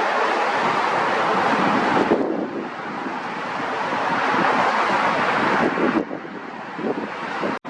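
Steady rushing roar of a jet airliner's engines, mixed with wind on the microphone. It thins out abruptly a couple of times and drops out for an instant near the end.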